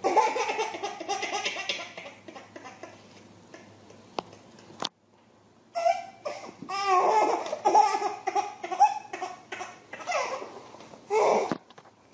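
Baby laughing in repeated belly-laugh bursts, broken by a brief silence about five seconds in.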